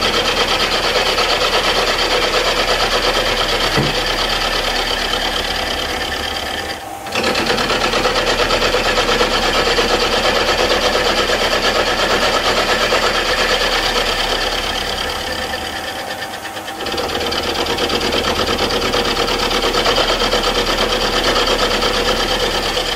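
Milling machine's roughing end mill cutting a cast rocker arm, its teeth making a fast, even chatter over the running spindle as the last 2 mm are milled off to reach finished height. The cut eases briefly twice, about seven and sixteen seconds in, then carries on.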